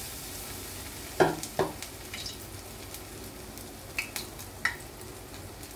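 A batter fritter with chopped goat fat frying in hot oil on low heat: a steady sizzle, with a few short sharp clicks about a second in and again around four seconds in.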